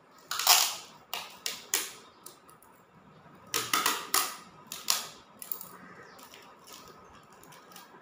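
Clear packing tape being pulled off its roll in short, noisy rips: a run of them starting about half a second in, another run around four seconds in, then only faint crackling.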